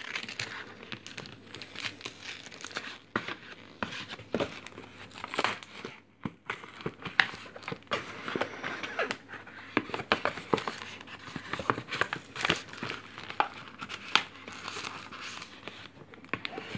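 Plastic and cardboard packaging being handled, crinkling and crackling irregularly, with a brief pause about six seconds in.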